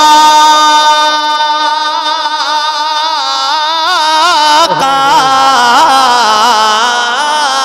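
Solo male voice singing a naat unaccompanied. He holds one long note for about four seconds, then breaks briefly and goes on in quick wavering vocal ornaments.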